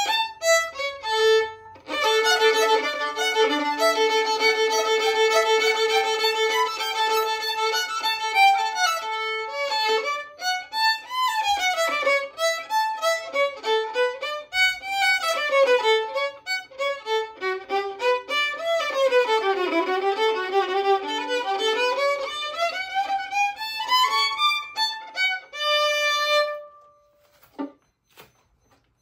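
Solo violin playing: held notes at first, then quick runs of notes rising and falling in pitch through the middle, ending on a few held notes and stopping near the end.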